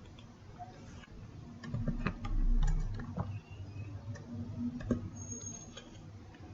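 Scattered clicks and taps from a computer keyboard and mouse during code editing, bunched about two seconds in and again near five seconds, with a low thump about two and a half seconds in.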